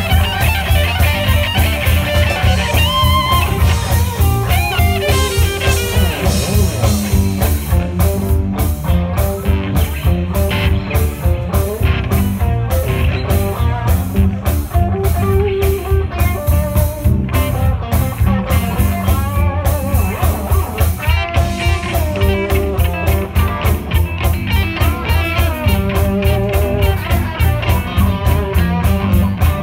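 Live blues-rock band playing: a lead electric guitar line with bent notes over bass guitar and drum kit.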